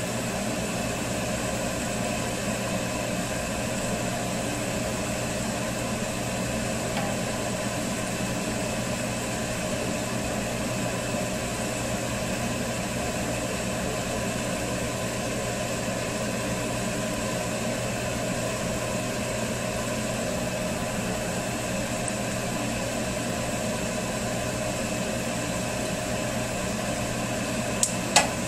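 Doughnut holes deep-frying in hot oil in a stainless steel saucepan, a steady sizzle under a steady mechanical hum. A couple of sharp clicks near the end come from the spatula touching the pan.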